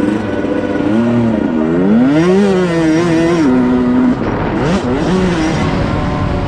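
Dirt bike engines revving hard, the pitch climbing and dropping again several times as the throttle is worked.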